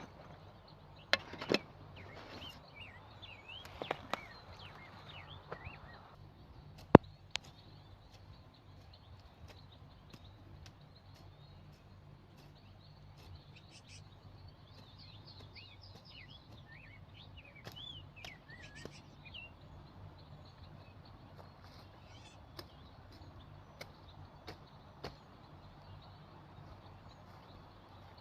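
Small birds chirping in bursts, with a few sharp knocks and clicks in the first seconds, the loudest about seven seconds in, over a faint steady low hum.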